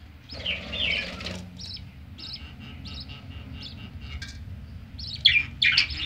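Budgerigars chirping at the nest while a hen feeds her newly hatched chicks. A cluster of chirps comes about half a second in, then short single chirps follow every half second or so, and two louder, harsher calls come near the end.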